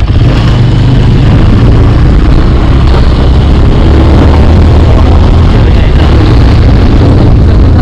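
Motorcycle running steadily while being ridden, under a loud, steady rumble of wind on the camera microphone.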